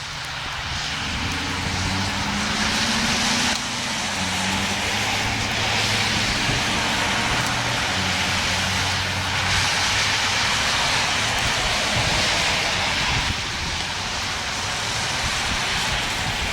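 Federal Signal STH-10 outdoor warning siren sounding during its attack-signal test, a low tone shifting in steps under a loud hiss that swells and fades every few seconds.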